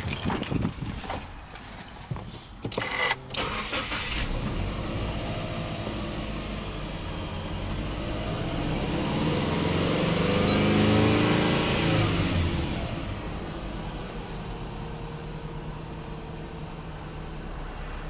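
A few knocks, then a Subaru Impreza 1.5i-S's 1.5-litre flat-four engine is cranked and catches about three seconds in, then idles. From about eight seconds in it is revved with no load up to roughly 3,000 rpm, then falls back to idle around thirteen seconds in.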